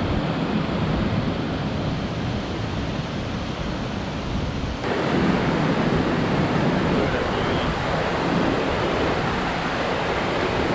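Steady rush of a nearby waterfall and rapids. About five seconds in the rush abruptly becomes louder and fuller.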